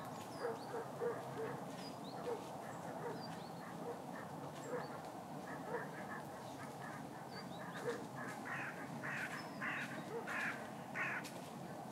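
Waterfowl on a lake calling in short, repeated notes, with small birds chirping high above; the calls come louder and closer together from about eight seconds in.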